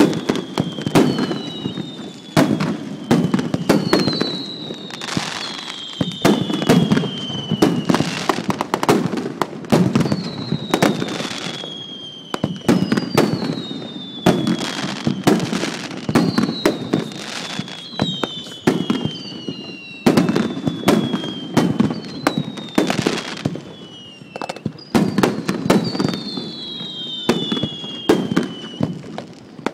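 Rapid-fire barrage of No. 2 (two-inch) aerial firework shells: a dense, continuous run of launch thumps and bursting bangs. High whistles that fall in pitch sound every second or two.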